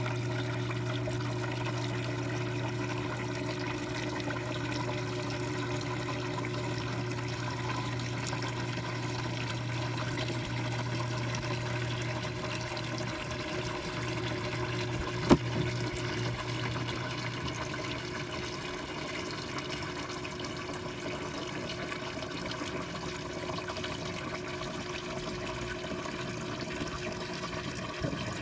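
Water running steadily into an aquaponics grow bed as it fills up around the bell siphon's standpipe, with a low hum that fades about two-thirds of the way through. A single sharp knock a little past halfway.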